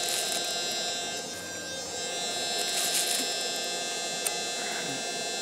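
Electric blower fan of a wood gasifier running steadily at full speed, a steady hum, with wood chips rustling as they are dropped into the hopper pipe about three seconds in.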